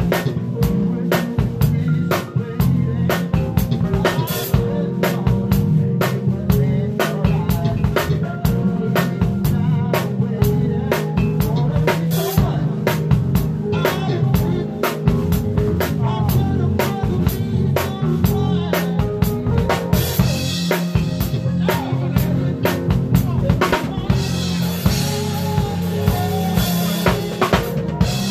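Live funk band playing, heard close to the drum kit: snare and kick drum in a steady groove over a bass line. Cymbals crash and wash about twenty seconds in and again near the end.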